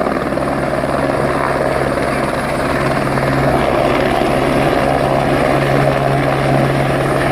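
Light helicopter hovering low over water while dipping its firefighting bucket, a steady loud rotor chop over engine noise.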